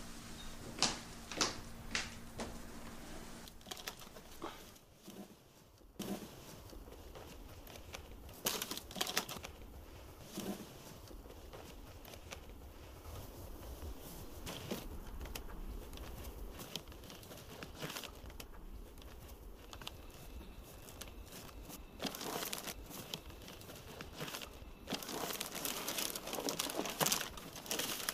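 A few sharp clicks of high heels on a wooden floor in the first two seconds, then rustling and crinkling of wrapping paper with scattered small clicks, densest near the end.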